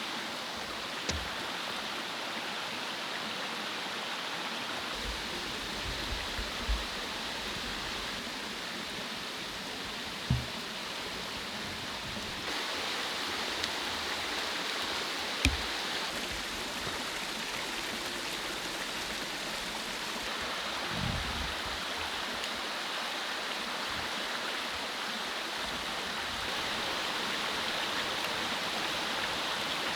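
Mountain stream running steadily, a continuous rush of water, with a handful of short low knocks now and then.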